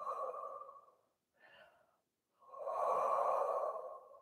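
A woman breathing audibly while holding a stretch: a short breath at the start, a faint one after it, then a long, steady breath lasting nearly two seconds in the second half.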